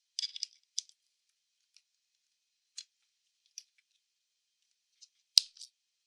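A handful of light, sharp clicks and ticks, with one louder, sharper click or knock about five seconds in.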